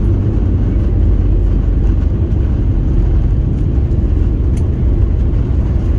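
Airbus A320-200 cabin noise: a steady low rumble of the engines and airflow around the fuselage.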